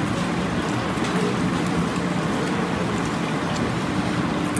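Steady rushing background noise with a low hum underneath and a few faint clicks.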